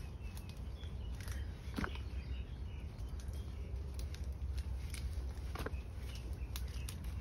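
Soil being dug and shifted with a hand tool: two short scrapes, about two seconds in and again near six seconds, over a steady low rumble.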